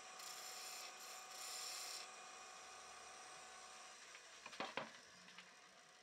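Wood lathe running with a steady hum while a turning gouge cuts the spinning golden cypress blank: two short hissing cuts in the first two seconds. A couple of sharp knocks come near the five-second mark.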